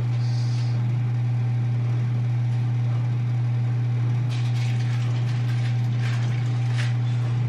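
Steady low machine hum, unchanging throughout. From about four seconds in there is light clattering and rustling.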